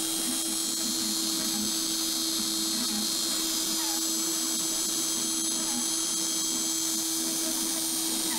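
Compact router spindle on a CNC carving machine running at a constant speed, its bit cutting a relief carving into construction-grade plywood: an even high whine with one steady hum beneath a hiss of cutting.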